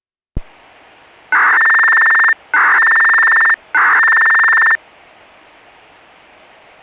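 Outdoor disaster-prevention radio loudspeakers (TOA reflex horns) switching on with a click and a steady hiss, then sounding three identical electronic beeps, each about a second long with short gaps between them, before returning to hiss.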